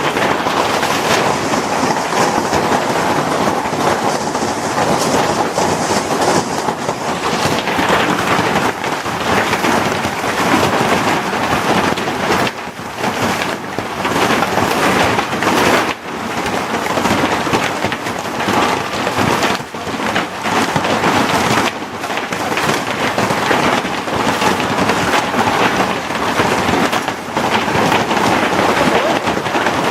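Heavy hail falling: a dense, continuous clatter of countless hailstones striking, easing for a moment a few times.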